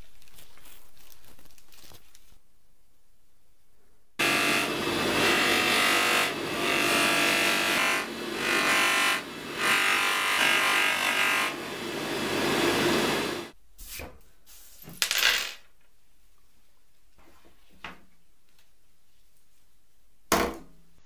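A bench polisher's motor hums under the rush of a spinning buffing wheel as small bolts are held against it. The level rises and falls several times, and the sound stops abruptly about 13 seconds in. A few short sharp knocks follow.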